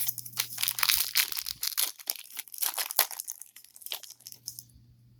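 Trading-card pack wrapper being torn open and crinkled by hand: a run of irregular crackling and tearing rustles that stops about four and a half seconds in.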